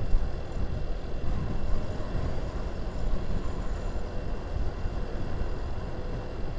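Wind buffeting a helmet-mounted microphone on a motor scooter ride at road speed, a rough, gusting low rumble that covers the scooter's engine and road noise. The wind gets into the mic this strongly on open stretches with no buildings on either side.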